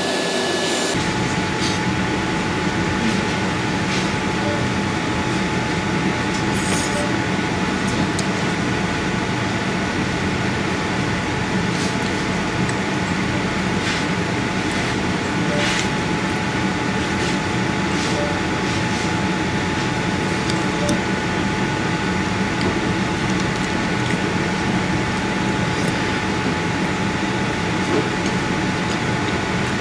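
Steady droning room noise with a faint constant hum that sets in about a second in, with a few brief clicks scattered through it.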